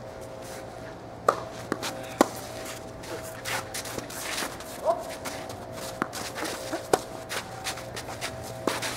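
Tennis ball struck by rackets in a doubles rally: a serve and returns, each a sharp pop a second or more apart, with players' footsteps on the court between them.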